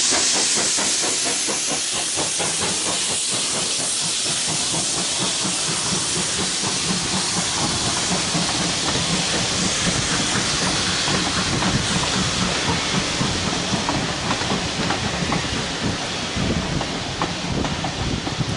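Steam hissing from a GWR Saint-class steam locomotive as it draws away, fading over the first few seconds. Its coaches then roll past, the wheels clicking and rumbling over the track.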